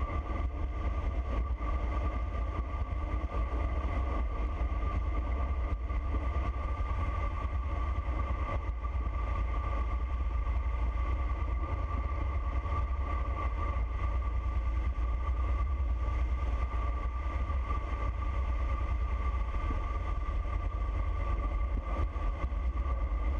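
Wind rushing over the camera microphone on a road bike coasting fast downhill: a steady low rumble with a steady high whine above it.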